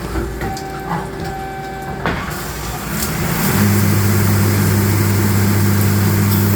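CNC lathe running while machining an acrylic call barrel: light ticks and a steady tone, a sharp click about two seconds in, then the machine gets louder with a hiss and a steady low hum from about three and a half seconds.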